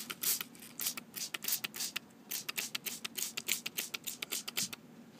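Hand pump spray bottle of SuperSep separating liquid being squirted rapidly and repeatedly onto a stone dental model: a quick, uneven run of short sharp spritzes, several a second, wetting the model so the new stone base will not stick to it.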